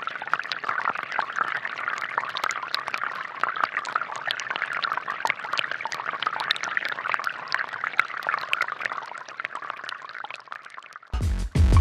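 Water trickling and splashing steadily in a small pump-driven DIY fountain, with a busy patter of drops. Music cuts in just before the end.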